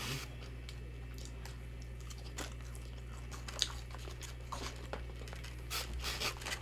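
A person chewing fried food close to the microphone: soft, scattered mouth clicks and light crunches, with a sharper click about halfway and a run of louder crunches near the end.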